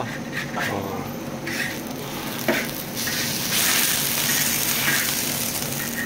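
A putty scraper strokes the dried guobian rice-batter sheet off the hot sides of a wok into the boiling broth, a few short scrapes at first. From about three seconds in comes a louder sizzling hiss as the batter and liquid meet the hot iron.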